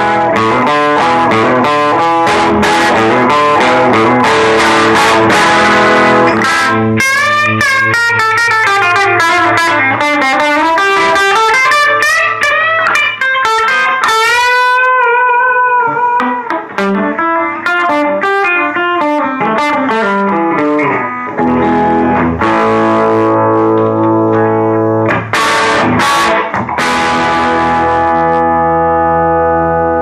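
Gibson Les Paul Tribute electric guitar with humbuckers played through a homemade Fender Champ AA764 clone tube amp (12AX7 preamp, 6V6 output tube) and a 12-inch Eminence speaker, overdriven, picked up by a phone's microphone. Distorted chord riffing gives way about seven seconds in to single-note lead lines with string bends, and chords return for the last several seconds.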